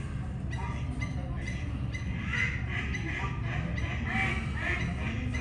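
Zoo ambience: a steady low hum with faint background voices and a few short calls about two and four seconds in.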